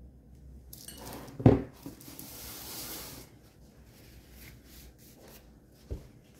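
Handling noise: a couple of seconds of rustling and rubbing with a sharp knock about one and a half seconds in, then a softer knock near the end.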